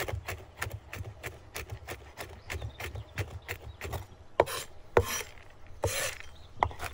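A large cleaver chopping walnuts on a wooden cutting board: quick, even knocks of the blade on the board, about three to four a second, with a few longer scraping strokes near the middle.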